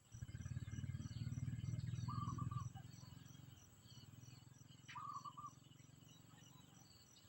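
A bird chirping twice in short quick runs, about two seconds in and again about five seconds in. Under it runs a low rumble, stronger in the first few seconds, and a faint, evenly repeating high-pitched pulsing.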